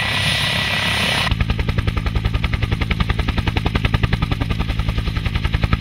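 Helicopter rotor chopping rapidly and evenly, about ten beats a second, over a steady low hum. It starts a little over a second in, when a steady hiss cuts off.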